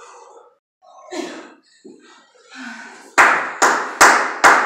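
Hands clapping in a steady rhythm, about two to three sharp claps a second, starting about three seconds in. Faint voices come before the claps.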